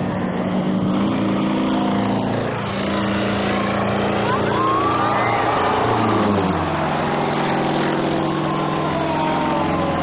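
Single-engine aerobatic propeller plane flying low past. Its engine note drops in pitch about six seconds in as it goes by.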